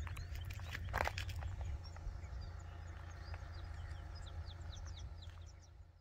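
Small birds chirping in a run of short, high, falling notes, over a steady low rumble of wind on the microphone; a brief knock about a second in.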